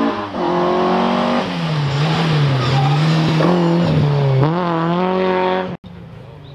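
Rally car engine on a stage, revs climbing, then dropping and holding low for a couple of seconds before rising sharply again under acceleration. The loud engine sound cuts off abruptly near the end, leaving a much fainter engine.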